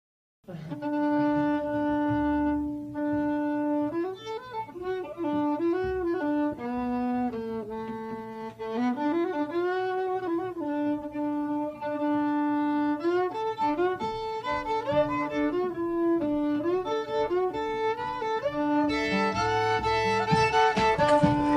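Fiddle playing a slow tune with held and sliding notes, as background music. A fuller, brighter sound joins near the end.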